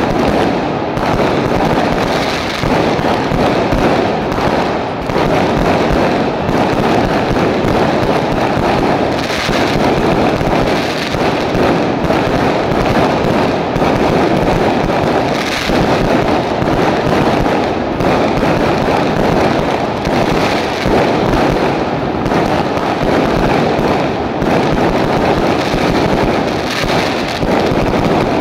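Aerial fireworks going off overhead in a dense, unbroken barrage of bursts and crackling, loud and steady throughout.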